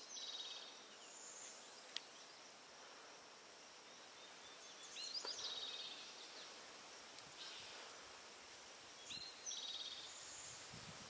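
A songbird singing the same short, high trilled song three times, about four to five seconds apart, faint over quiet woodland background.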